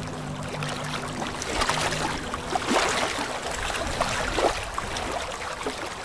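Aquarium aeration bubbling: air from an air stone and the sponge filters' airlift tube rising and breaking at the water surface, a steady watery hiss with small pops and splashes. A few soft held music notes sound under it for the first half.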